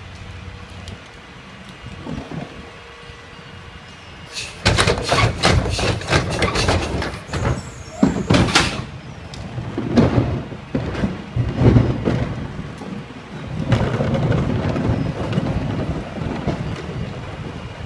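Rear-loader garbage truck idling, then, about four and a half seconds in, a loud, dense clatter of recyclables and plastic carts as the blue recycling carts are tipped and emptied into the hopper, followed by further knocks and bangs as carts are handled.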